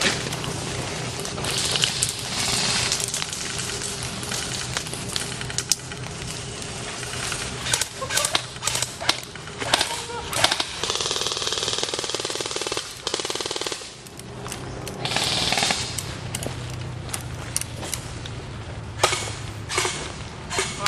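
Airsoft guns firing in a skirmish: scattered sharp pops and short bursts, with a longer rapid full-auto burst from about 11 to 14 seconds in.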